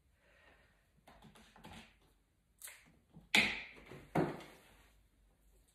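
Light clicks and taps from flower stems being handled and worked into an arrangement, then two sharper knocks less than a second apart a little past the middle.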